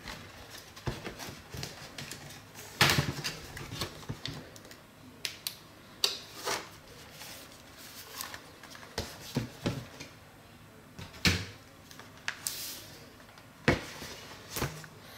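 Plastic snap clips of a Dell Inspiron laptop's casing popping open one after another as a guitar pick is worked along the seam, with knocks and clatter of the plastic and metal case parts being pulled apart and set down on a desk. The clicks and knocks come irregularly, the loudest about three, six, eleven and fourteen seconds in.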